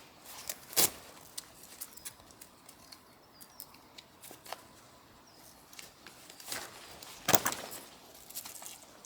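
Scattered clicks and rustles of things being handled, with two louder rustles, one about a second in and one about seven seconds in.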